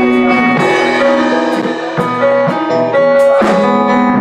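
A live band playing: sustained keyboard chords and notes with a drum kit's hits and cymbals, an electric guitar among them.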